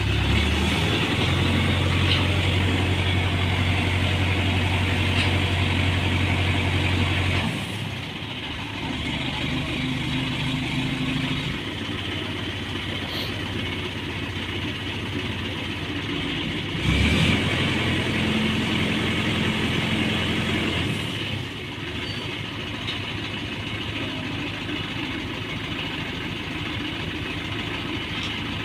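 Hydra mobile crane's diesel engine running steadily, its pitch and level shifting several times: it drops about a third of the way in, and there is a brief louder burst a little past halfway.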